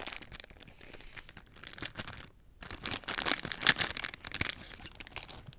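A foil blind bag being crinkled and torn open by hand: irregular crackling of the foil packet, with a short pause a little over two seconds in before more crackling.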